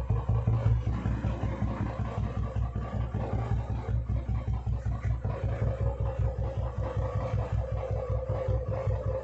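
Royal Enfield Classic 350's single-cylinder engine idling through its exhaust, an even, quick low thumping. A steady higher tone joins about five seconds in.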